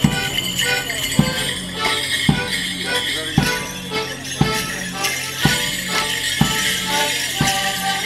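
Live Morris dance tune on accordion with a bass drum struck about once a second, over the jingling of the dancers' leg bells.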